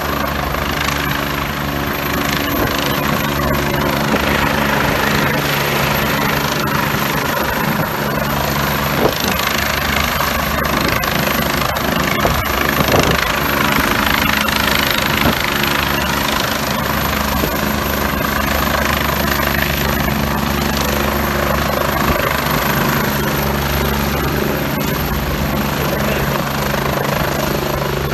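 Helicopter hovering close over a ship's deck, its rotor and engine running steadily: a continuous rush of rotor noise over a steady low hum, with a few faint clicks partway through.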